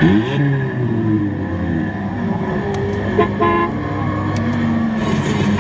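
Northern Leisure MK2 Rally Car kiddie ride playing recorded car sound effects through its speaker as a dashboard button is pressed: an engine revving up and dying back, then a short horn toot about three seconds in.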